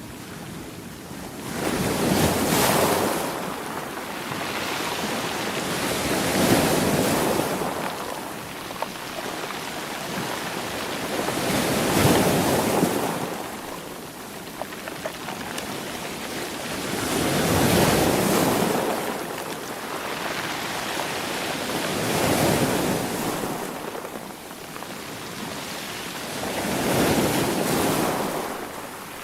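Sea waves breaking and washing up on the shore, one surge about every five seconds, six in all, each swelling and then ebbing away.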